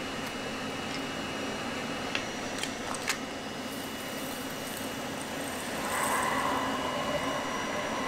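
An air drill's seed-delivery system running, a steady fan-driven hum and hiss, with a few light clicks as a metal rod is worked in a plugged seed hose. About six seconds in a louder rush of air starts, as the cleared hose lets air and seed blow out.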